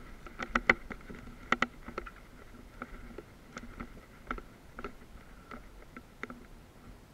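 Scattered sharp clicks and knocks of gear and footing close to a body-worn camera as a player moves over rubble, the loudest coming in two close pairs in the first two seconds, then smaller, sparser ones.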